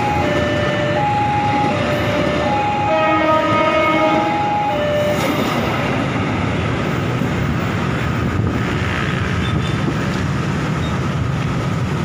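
Passenger train coaches rolling past close by, a steady rumble and hiss of wheels on rails. During the first few seconds a repeating two-note tone sounds over it.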